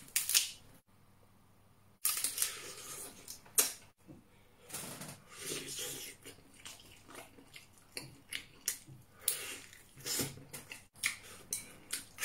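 Close-miked eating sounds: lobster shell cracking and crunching as pieces are pulled apart by hand, mixed with chewing and mouth smacking. Irregular crackles and snaps, broken by a short silent gap about a second in.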